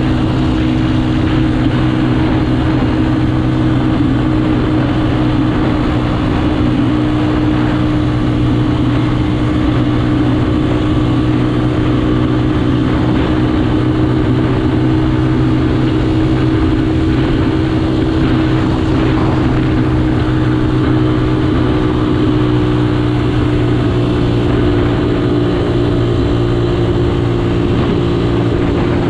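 Motorcycle engine running at a steady cruising speed, its note held even, with the rush of wind and road noise over it.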